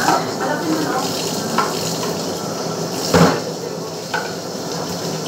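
Utensils clinking and scraping on plates and serving dishes during a meal, over a steady rushing background noise, with a louder knock just after three seconds in.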